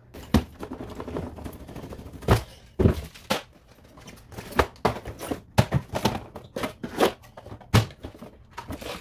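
Cardboard box being opened and its packed contents handled: a string of irregular knocks and thuds from cardboard and parts, with rustling of packaging between them.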